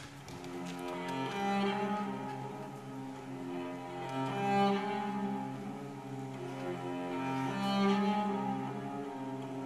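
Slow bowed string music led by a cello, playing long held notes that swell in loudness about every three seconds.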